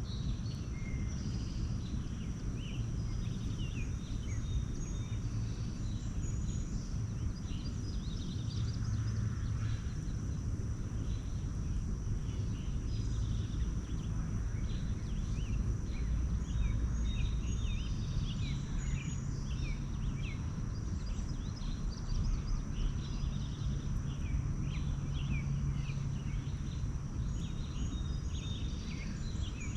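Small wild birds chirping, with many short, quick chirps overlapping throughout, over a steady low rumble and a thin steady high whine.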